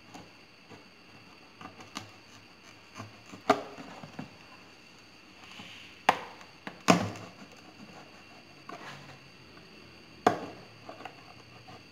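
Kitchen knife, warmed beforehand, being pushed and worked through the wall of a plastic bottle: irregular sharp clicks and cracks of the plastic, the loudest about three and a half, seven and ten seconds in.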